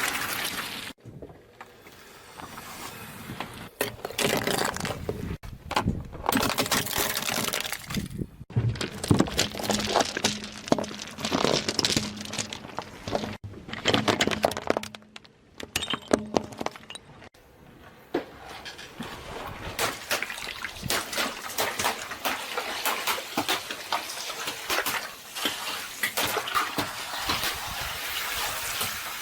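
Objects crushed under a car tyre: crunching and cracking with liquid squirting and splashing out, in several short takes that cut off abruptly.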